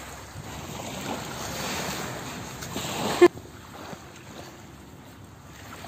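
Wind and surf noise on a beach, loudest for the first three seconds, then cutting off abruptly into quieter steady noise. A single short, sharp sound, the loudest thing here, comes just at that change.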